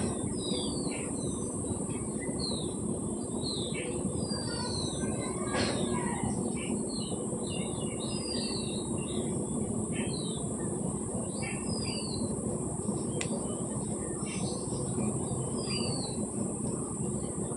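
Small birds chirping, many short falling calls repeated throughout, over a steady background hiss.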